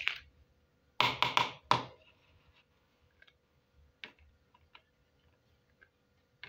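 Small plastic toy plates clacking as they are handled and set down in a stack: a quick run of four sharp clacks about a second in, then scattered light taps and another click near the end.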